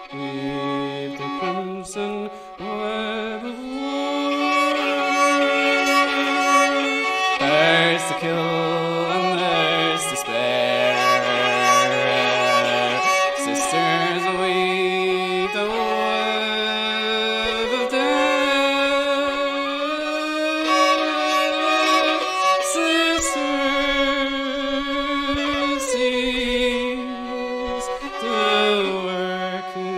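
Fiddle playing an instrumental passage of long held notes with slides between them, over a lower line of sustained notes.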